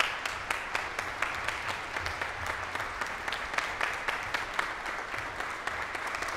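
Concert audience applauding: a dense, steady wash of clapping with many individual hand claps standing out.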